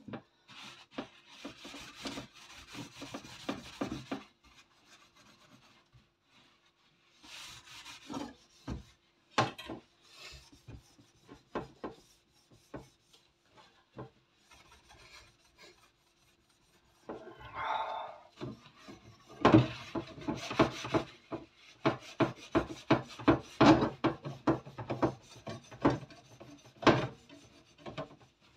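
A soap-filled scouring sponge scrubbed back and forth over the wires of a metal oven rack, rasping in bursts of quick strokes with short pauses; the strokes come thickest in the second half.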